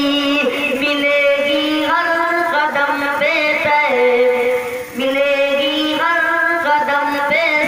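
A man singing a naat in long held notes, the melody gliding up and down, with a brief break for breath about two-thirds of the way through.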